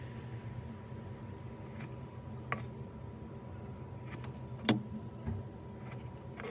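A freshly made knife slicing thin curls from a small piece of material on a wooden board, over a steady low hum. Three short sharp clicks come about a third of the way in, about two-thirds in and just after, the middle one the loudest, as the blade cuts through and meets the board.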